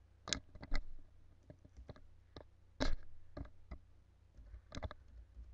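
Scattered sharp clicks of a computer keyboard and mouse, irregularly spaced, the loudest about three seconds in, over a low steady hum.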